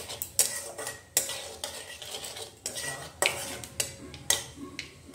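A flat spatula scraping and knocking against a metal kadai, about one stroke a second, as nigella seeds are stirred in hot oil for a tempering (kalo jeera phoron), under a light sizzle.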